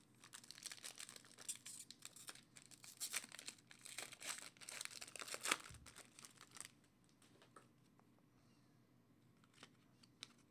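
Foil wrapper of a trading-card pack being torn open and crinkled by hand: a run of dense crackling for about six and a half seconds. Then it goes quiet, with a few light clicks as the cards are handled.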